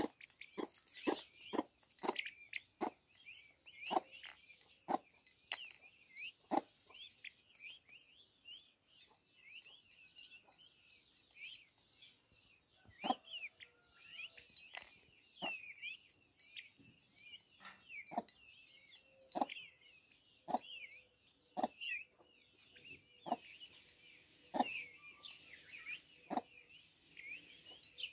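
A flock of peafowl chicks peeping continuously in many short, high chirps while they feed, with sharp, irregular clicks of beaks striking a ceramic plate of feed every half second or so.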